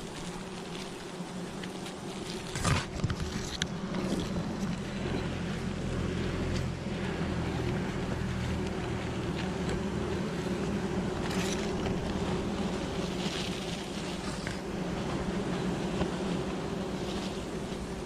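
Wild honeybees buzzing in a steady drone, with a few crinkles of a plastic bag being tied shut.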